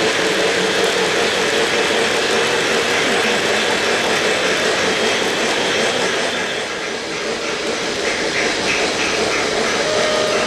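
O-gauge three-rail model trains running on the layout: a steady rolling rumble of wheels and motors on the track. A rhythmic chuffing of about two to three beats a second joins about eight seconds in.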